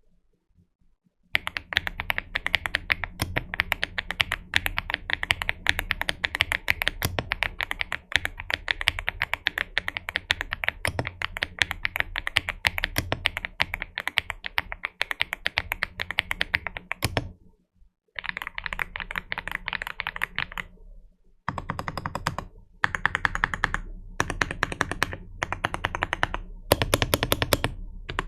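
Typing on a GMK67 mechanical keyboard fitted with AKKO Dracula switches. A fast, continuous clatter of keystrokes starts about a second in; after a brief pause past the middle it goes on in shorter bursts broken by short gaps.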